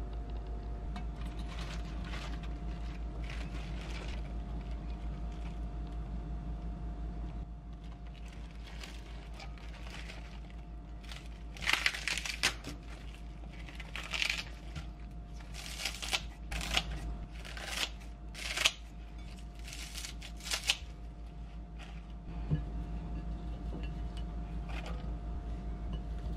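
Crisp rustling and light taps of cut winter cabbage leaves being handled and put into a glass bowl, a string of short sounds through the middle of the stretch, over a steady low hum.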